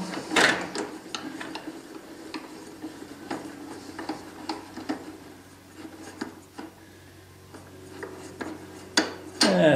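The blade-height crank of a Chicago Electric 10-inch table saw being turned by hand, lowering the blade and guard into the table: a run of faint, irregular ticks and scrapes from the elevation mechanism, with a sharper knock just after the start and another near the end.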